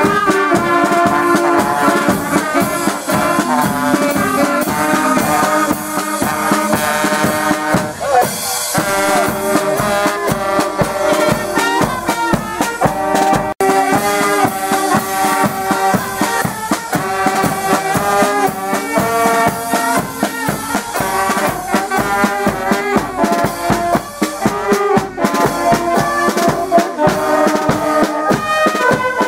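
Brass band with drums and percussion playing a lively tune live, with held brass chords over a steady beat.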